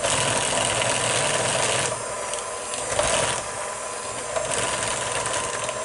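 Electric hand mixer running steadily, its beaters working softened butter into cake batter in a bowl, with a motor whine under a scraping, churning noise that swells and eases a few times.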